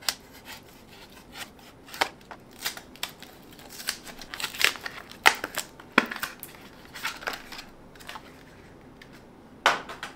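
Plastic blister packaging and its paper wrapping being cut and torn open by hand: sharp snaps and crinkling of plastic and paper in a quick, uneven run, with a loud snap at the start and another near the end.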